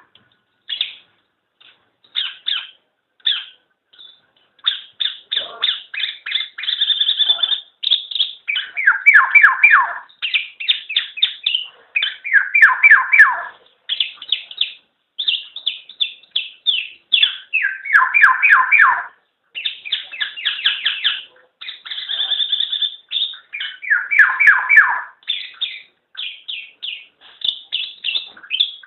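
Black-naped oriole calling: bursts of quick, rapidly repeated notes, with a lower, harsher phrase every few seconds.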